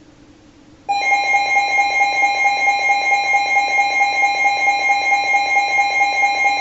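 Emergency Alert System two-tone Attention Signal, 853 and 960 Hz sounded together, coming on abruptly about a second in over faint radio static and then holding steady and loud. It marks the start of a broadcast severe thunderstorm warning.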